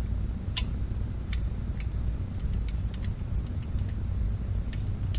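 Scattered light clicks and taps of small metal chainsaw parts being handled while the brake band is fitted into the chain brake, over a steady low hum.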